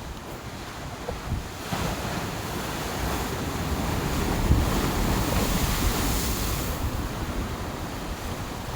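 Ocean surf breaking on the shore, its rush swelling over a few seconds and then easing, with wind buffeting the microphone.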